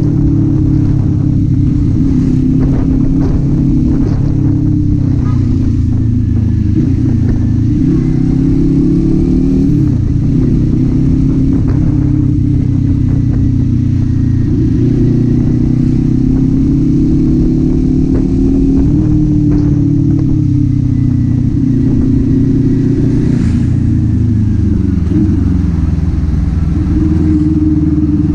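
Kawasaki Z400 parallel-twin engine and exhaust under way, the revs rising and falling again and again with throttle and gear changes.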